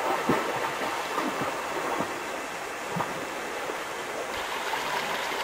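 Steady rush of moving water, with a few faint knocks.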